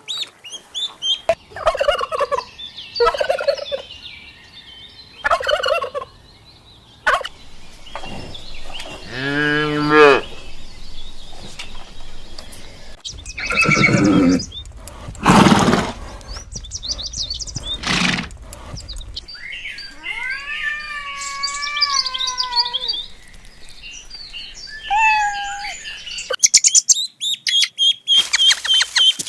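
Poultry calling: a run of separate squawks and calls with short gaps between them, several of them with pitch that rises and falls.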